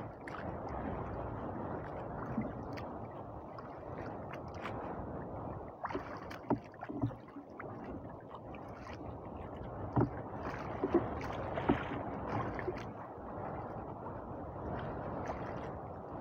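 Sea water lapping and gurgling against a small boat's hull, with a steady wash of waves and wind. A few sharp knocks stand out around the middle.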